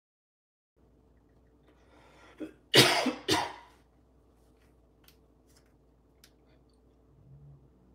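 A man coughing hard twice in quick succession after a short breath in, trying to clear something stuck in his throat.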